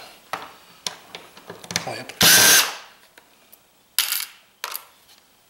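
A short whir of a small handheld power tool, about half a second long, a little after two seconds in, amid light clicks of handling on the bench. Two shorter scraping sounds follow near the end.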